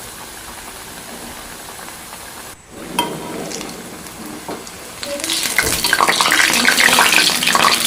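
Batter-coated potato balls deep-frying in hot oil. A quieter sizzle turns into a loud, dense crackling from about five seconds in.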